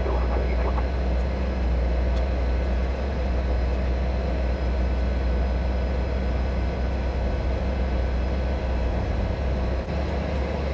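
Cessna 208 Caravan's Pratt & Whitney PT6A turboprop engine and propeller running on the ground during before-takeoff checks, a steady low drone heard from inside the cockpit.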